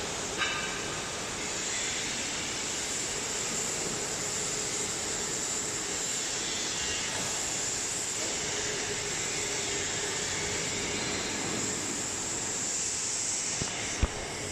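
CNC bending machine (press brake) running: a steady mechanical hiss with a faint steady tone under it, a click just after the start and a single sharp knock about a second before the end.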